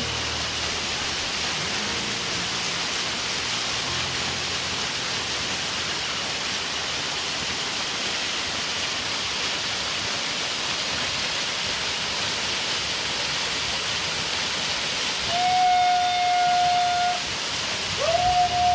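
Waterfall's steady rush of falling water. Near the end a high, steady held note sounds twice, each lasting about two seconds.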